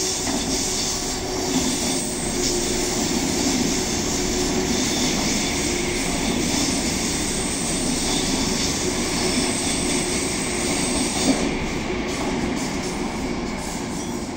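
Frecciarossa high-speed electric train moving along the station track, a steady noise of wheels on rails and running gear that thins out a little near the end.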